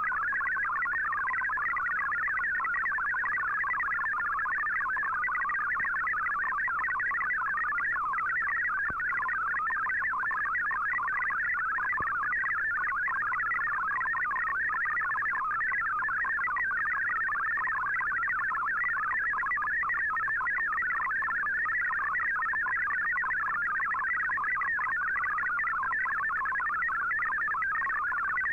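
MFSK64 digital data signal received over shortwave: a dense, steady warble of many tones hopping rapidly within a narrow band, at an even level throughout. It carries text that is being decoded as it arrives.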